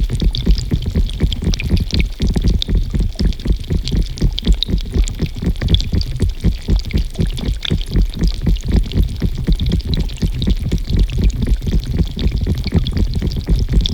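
Water pouring and gurgling steadily, loud and deep, with a constant patter of small splashes and drips on top; a composed water soundscape between field recording and musique concrète.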